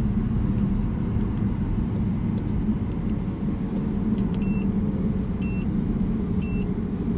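Cabin drone of an Audi R8 V10 Plus cruising at about 107 km/h: the V10 and tyre noise make a steady low rumble. About four and a half seconds in, a GPS performance timer gives three short beeps a second apart, counting down to the start of a 100–200 km/h measurement.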